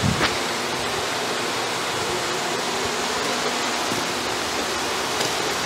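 Water running steadily out of an outlet: a constant rushing hiss, with one brief click near the start.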